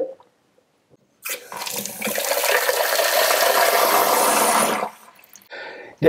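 Washing-machine supply tap opened into a plastic measuring jug: after about a second, a strong stream of water gushes into the jug for about three and a half seconds, then stops. The full, steady flow shows that the water pressure at the tap is fine.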